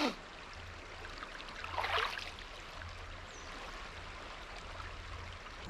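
Steady rush of flowing water, with a short sharp sound at the start and a brief louder sound about two seconds in.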